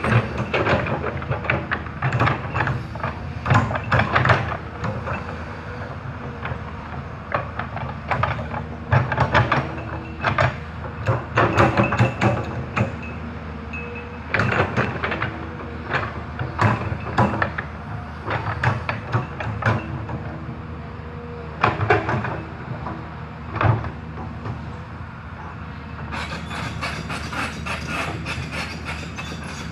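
Hyundai HX210S hydraulic excavator's diesel engine running steadily, with many sharp metallic clanks and knocks that come thickest in the first part and thin out after about 24 seconds. A steady hiss comes in near the end.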